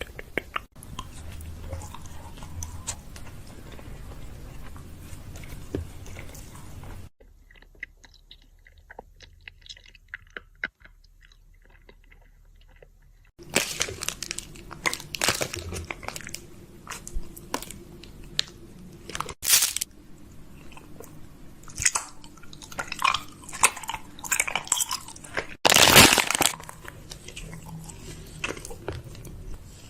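Repeated close-up crunching. It drops to a much quieter stretch between about 7 and 13 seconds in, and there is a loud burst of crunching around 26 seconds.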